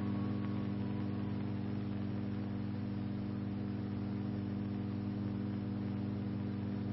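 Steady electrical mains hum, a low buzz made of several steady tones over a faint hiss, with a faint tone rising briefly in the first second.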